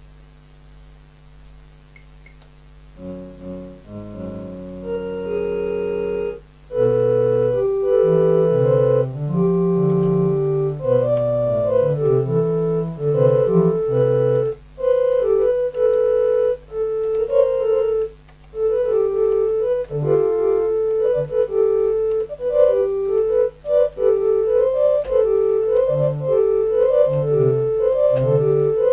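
Improvised keyboard solo in experimental music. A quiet held chord opens, notes enter and build from about three seconds in, and from about six seconds a louder melody of held notes runs over a moving bass line.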